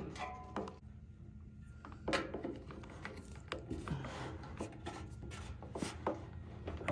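Scattered clicks, light knocks and rubbing from handling screws and sheet-metal parts of an electric heater as they are unfastened. A few of the knocks ring briefly, like metal.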